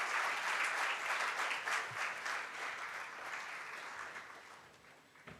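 Audience applauding, the clapping fading away over a few seconds, with a soft knock near the end.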